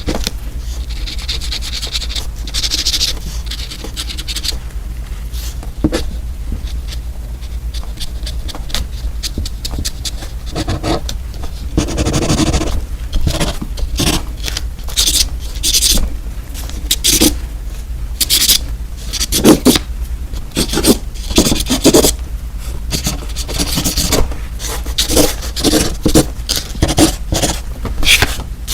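Close-miked ASMR scraping and scratching: an irregular run of short, sharp strokes that comes thicker in the second half, over a steady low hum.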